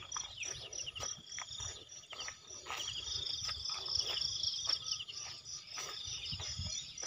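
Insects chirping in a steady, high, rapidly pulsing trill, with soft irregular knocks throughout.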